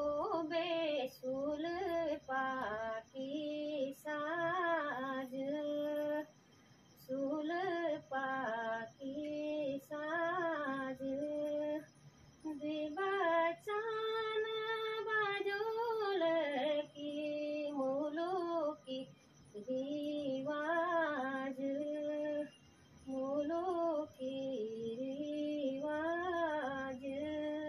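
A woman singing alone, without accompaniment: a slow, wavering melody in phrases of one to three seconds with short breaths between them.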